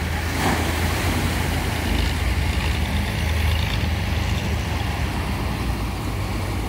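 A fishing boat's Mercedes diesel engine running steadily as a low drone, with surf washing around the beached hull.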